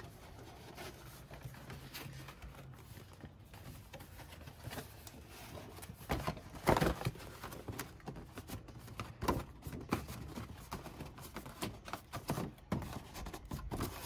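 Cardboard parts box being handled and opened: scattered knocks, taps and rustles, loudest in a cluster about six to seven seconds in.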